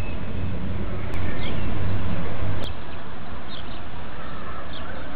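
Small birds chirping now and then over a steady rushing background noise, with two sharp clicks about a second and a half apart.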